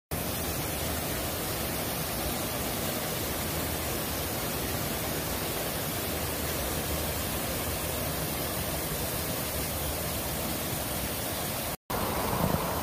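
Steady rush of a small creek cascading over boulders, an even hiss of water with no breaks except a brief cutout near the end.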